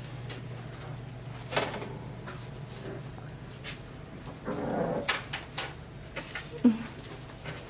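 Boxer puppies at play tugging rope toys: a couple of short puppy yelps and growls, about a second and a half in and again at the middle, among scattered sharp clicks and taps on a tile floor, over a steady low hum.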